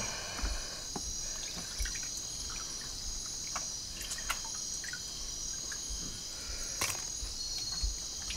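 Night insects chirring in a steady, high-pitched drone, with a few faint scattered clicks and one sharper click near the end.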